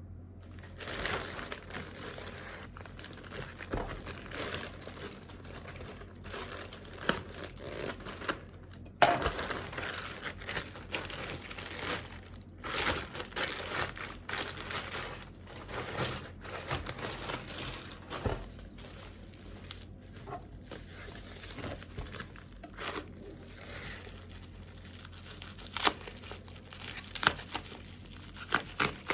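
Packaging being unwrapped and handled: irregular crinkling and tearing, with a few sharp clicks, the loudest about nine seconds in and twice near the end.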